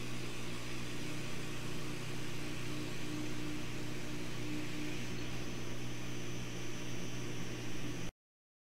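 Air-assist air pump running steadily with a low hum and an airy hiss, together with the laser engraver working its cut. The sound cuts off abruptly near the end.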